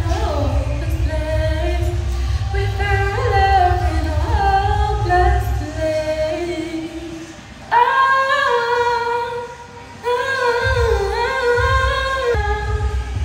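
A woman's voice singing a melody in long, gliding notes over a song's low, pulsing bass beat. The bass drops out for about two seconds just past the middle while the singing goes on, then returns.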